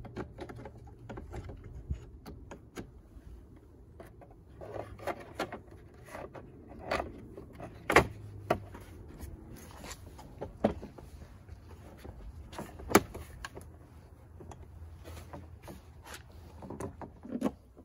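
Scattered plastic clicks and knocks as a gloss black mirror cover is handled and pressed onto a Ford F-150's side mirror housing, its clips snapping in, with two sharper snaps about eight and thirteen seconds in.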